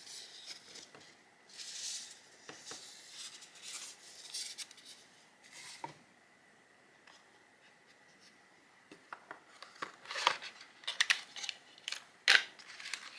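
Plastic packaging from a phone screen replacement kit being handled: rustling and crinkling for several seconds, then, after a short pause, a run of sharp clicks and scrapes.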